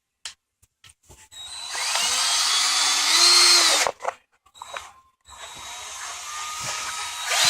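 Power drill backing out a small screw. It runs twice: the motor whines up to speed, runs about two and a half seconds and stops, then starts again about five seconds in and climbs to full speed.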